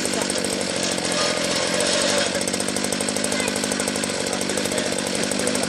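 Small petrol engine of a rolak mini soil tiller running steadily at working throttle, its firing a fast, even buzz.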